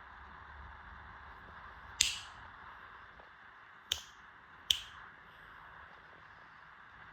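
Three sharp clicks over a steady faint hiss: one about two seconds in, then two more close together, under a second apart, around four seconds in.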